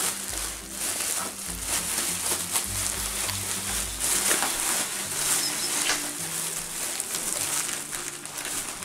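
Bubble wrap crinkling and rustling as a packed model horse is unwrapped by hand, over background music with a stepping bass line.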